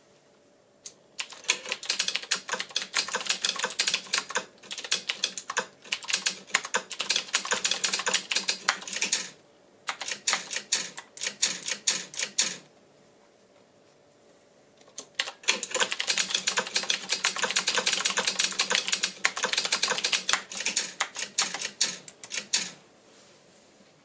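Fast typing on a Qwerkywriter S typewriter-style mechanical keyboard with round keycaps over Cherry MX switches: dense runs of clacking keystrokes. There is a brief break about nine seconds in and a longer pause of a couple of seconds past the middle.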